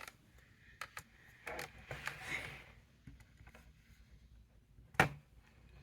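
Scattered light clicks and taps from handling a keyboard and computer, with one sharper, louder click about five seconds in.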